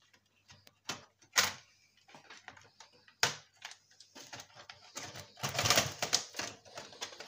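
Sharp clicks and rattling of metal and plastic parts inside a Dell desktop computer's steel case as it is taken apart by hand and its internal wires are pulled free. A few separate clicks come first, then a quick, busier run of clicking and rattling from about five seconds in.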